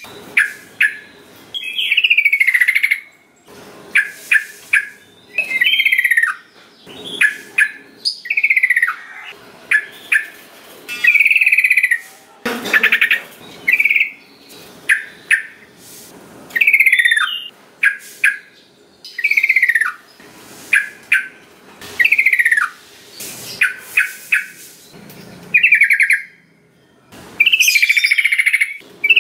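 Yellow-vented bulbul (trucukan) singing over and over: short, bubbly phrases that mostly slide down in pitch, with quick chattering notes between them, about one phrase every second or two.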